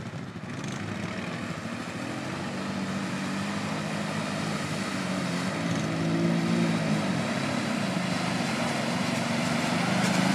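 Honda ATV engine running under load through deep mud, its revs rising and falling. It grows louder as the quad approaches.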